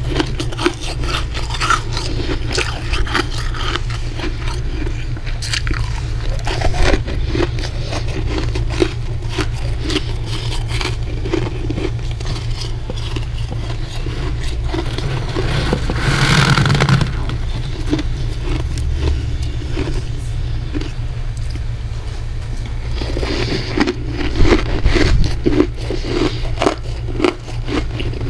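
Close-miked crunching of freezer frost as it is scraped up and bitten, a dense run of quick crisp crunches over a steady low hum.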